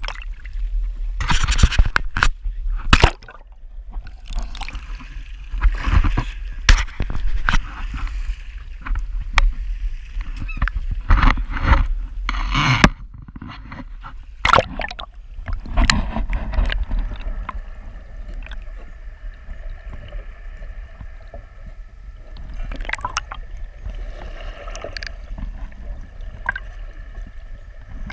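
Sea water splashing and gurgling around an action camera as it is dunked in and out of small waves. From a little past halfway it stays underwater, and the sound turns muffled, with a steady hum of several held tones.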